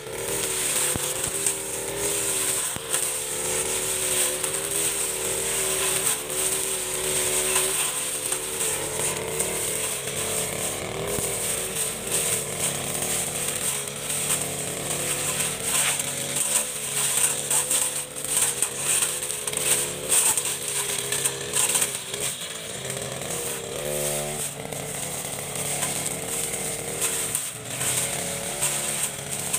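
Backpack brush cutter's small petrol engine running under load, its pitch wavering up and down as the throttle is worked, while the cutting head slashes through tall grass with a steady hiss and rapid ticking from stems being hit. About 24 seconds in the engine revs up briefly.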